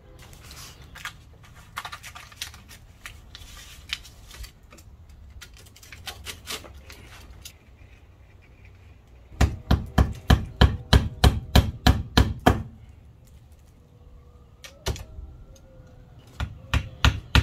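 Hammer driving nails, fastening wire lath around a window frame on a stucco wall. It strikes a rapid run of about fourteen blows at four to five a second, then a few more near the end, with lighter scattered tapping and rustling before.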